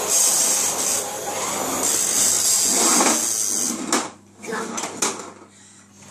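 Toy cars with plastic wheels rolling over a laminate floor, a steady rolling rattle, followed a little past halfway by a few sharp knocks of the toys against the floor.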